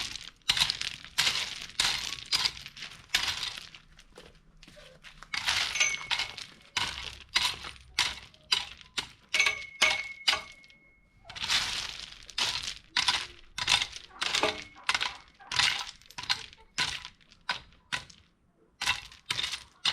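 Stones crunching and clinking against each other, over and over, in quick irregular strokes, with a quieter stretch about four seconds in.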